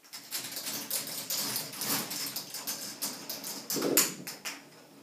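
Balls clattering down through a K'Nex binary calculating machine as it works out a multiplication: a dense run of quick clicks and rattles, with a louder knock about four seconds in, then thinning out.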